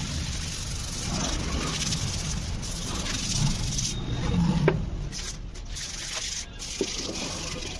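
Hands rubbing and scrubbing across the bare, rust-stained sheet-steel fuel tank of a Hero Honda CD 100 SS, a steady scratchy sound with two light knocks in the second half.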